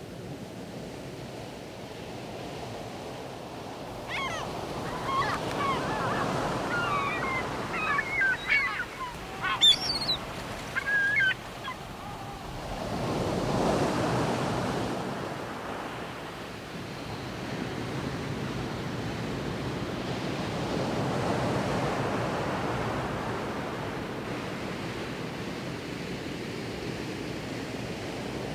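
Sea waves washing onto a rocky shore as a steady rush that swells and eases twice in the second half. Birds call in a string of short cries over several seconds in the first half.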